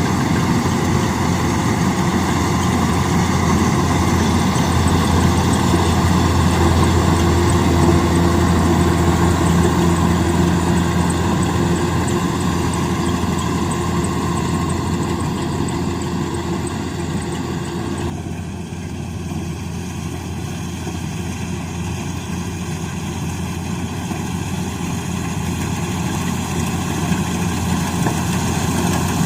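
Rice harvester's engine running steadily with a deep hum. About two-thirds of the way through, the sound changes abruptly and turns duller, then builds louder again toward the end.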